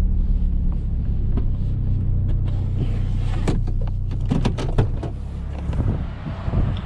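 Pickup truck engine running with a steady low hum, with a few short knocks and rattles about three to five seconds in.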